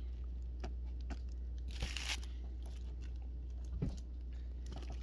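Produce and its packaging being handled: a few soft knocks, a short rustle about two seconds in and a low thump near the four-second mark, over a steady low hum.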